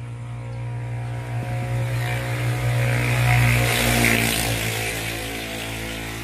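A passing engine: a steady motor drone grows louder to a peak about four seconds in, then fades.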